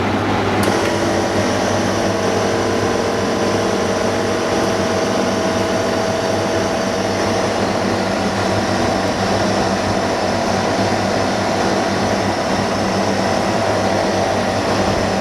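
Steady machine hum and whir with a hiss over it, holding at an even level throughout; a higher hiss joins about a second in.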